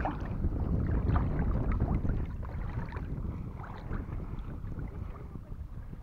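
Wind rumbling on the microphone over water sloshing and splashing at the sea's edge, louder for the first two seconds, then a little quieter.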